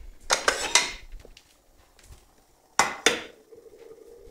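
Hard objects clattering and knocking: a quick bunch of sharp knocks just under a second in, then two more close together near three seconds. After them comes a faint steady hum.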